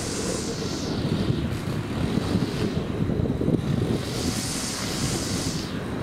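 Outdoor background rumble with wind buffeting the microphone, and a high hiss that swells and fades twice.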